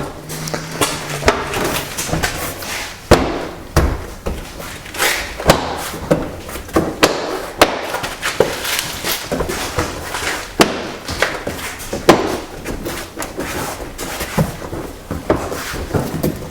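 Irregular knocks, taps and thuds of a car's plastic interior door panel being pressed and snapped into place on its clips.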